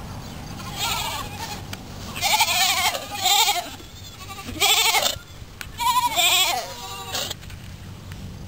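Goats bleating, about six calls with a wavering pitch: a faint one about a second in, then four loud bleats between about two and six and a half seconds in, and a fainter one near seven seconds.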